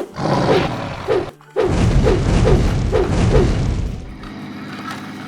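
Cartoon dragon breathing fire, a sound effect. A first burst is followed by a louder rushing blast with a deep rumble, running from about a second and a half in to four seconds, with short falling cries repeating over it about twice a second. It then settles to a softer steady sound.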